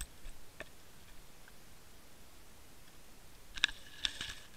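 Sharp clicks and rattles picked up underwater by a camera rigged on a bottom-fishing line as it moves over a rocky bottom: a few faint ticks at first, then a dense cluster about three and a half seconds in.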